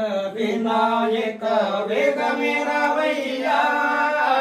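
Singing voices in a Telugu devotional mangala harati song to Ganesha, with long held notes and a change of pitch about two seconds in.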